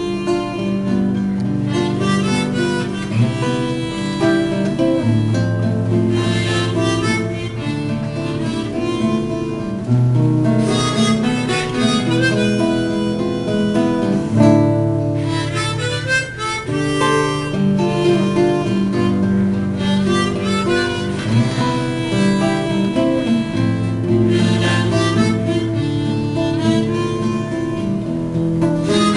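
Harmonica in a neck holder and an acoustic guitar played together by one player: the guitar holds chords that change every couple of seconds while the harmonica plays the melody over them. No singing.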